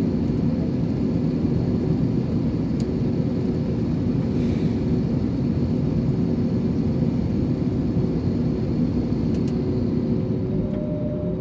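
Jet airliner heard from inside the passenger cabin: a steady, loud rumble of engines and airflow with a low droning hum. Near the end a slightly higher hum comes in and the level eases a little.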